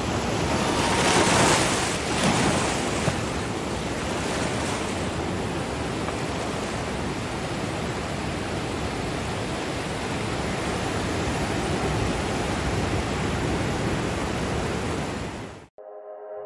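Small waves washing in over a shallow rocky reef, a steady rush of surf with stronger surges in the first few seconds. It cuts off suddenly near the end.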